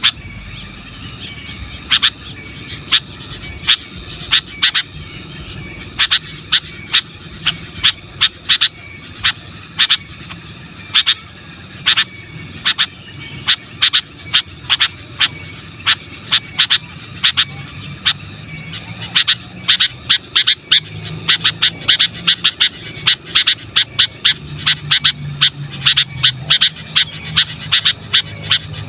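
Sooty-headed bulbul calling in a long run of short, sharp notes, several a second, coming thicker from about two-thirds of the way in, over a low steady hum.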